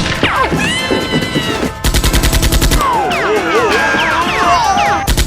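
Rapid automatic gunfire sound effect, about a dozen shots a second, in a burst about two seconds in that lasts roughly a second, with a second short burst near the end. Sliding electronic tones play over background music between the bursts.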